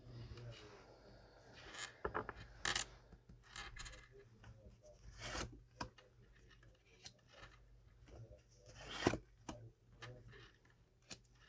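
Tarot cards being handled and laid out on a table: irregular rustles, slides and light taps, the loudest about nine seconds in.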